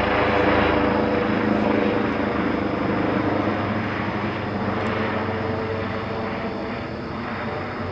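Eurocopter EC135 helicopter flying over: steady rotor and turbine sound with a low hum, loudest about half a second to two seconds in and slowly fading after.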